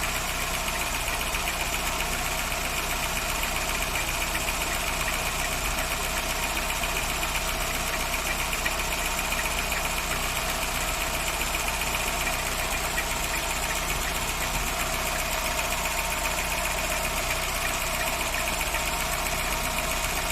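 Volkswagen AP 1.6 four-cylinder engine running steadily, with a steady whine and fast, fine ticking. This is the engine noise under diagnosis, which the owner suspects comes from the plastic timing-belt cover rubbing.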